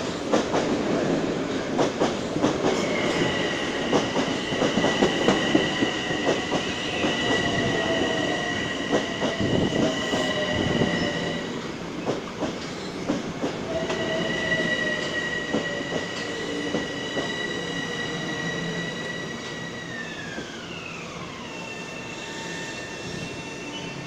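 Metro-North electric commuter train pulling into the station. Its wheels click over the rail joints, and a high steady whine or squeal drops in pitch near the end as the train slows to a stop.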